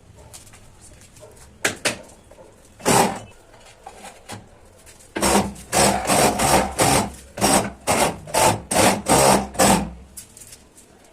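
Trowel scraping tile adhesive on a wall, in repeated strokes. There are a few single strokes at first, then a quick run of about a dozen, roughly two a second.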